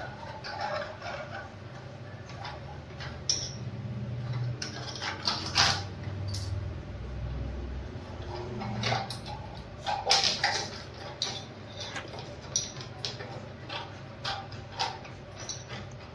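Screwdriver loosening the side screws of a Hindware concealed cistern's plastic access frame: scattered clicks, scrapes and plastic rattles as the frame is worked loose.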